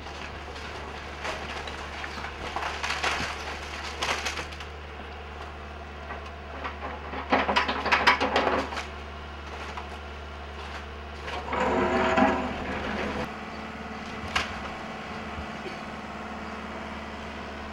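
Wood splintering and crunching in irregular bursts as a structure is torn down, loudest about eight seconds in, with a sharp crack near the end, over a steady low drone of heavy machinery.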